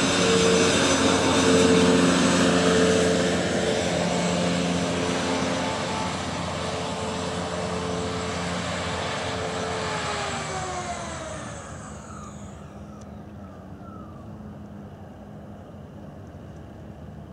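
Many small electric-motor propellers on a truck-mounted test wing, running together as a loud, steady whine with a high hiss. About ten seconds in the pitch drops and the sound fades as the rig moves away.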